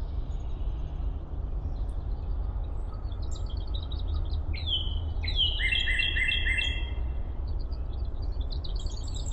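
Several songbirds singing in a woodland, with high chirps and trills throughout and a run of repeated descending whistled notes in the middle. A steady low rumble runs underneath.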